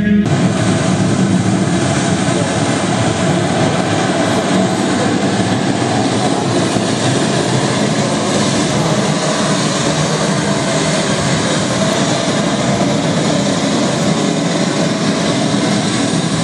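A loud, steady rush of noise with no rhythm or melody, starting abruptly just after the beginning.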